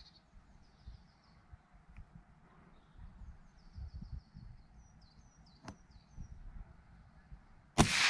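Small birds chirping and calling in short repeated phrases over a faint low rumble of outdoor background, then near the end a single sharp crack from a .177 sub-12 ft-lb PCP air rifle firing, with a short fading tail after it.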